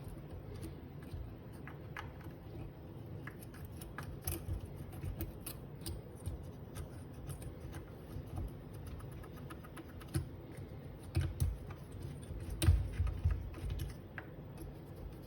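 A small ear-pick tool scraping and clicking against the burr of a Breville Smart Grinder, loosening hardened coffee grounds. It makes a run of light, irregular scratches and ticks, with a few louder knocks in the later part.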